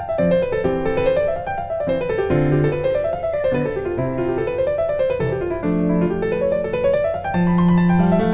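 Background piano music: quick rising and falling arpeggios over held bass notes.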